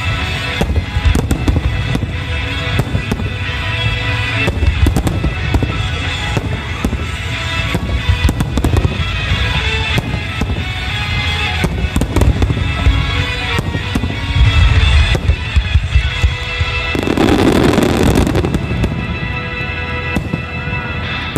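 Fireworks shells bursting in rapid, overlapping succession, many sharp bangs and pops, over loud music. About three quarters of the way in comes a louder, longer rushing burst.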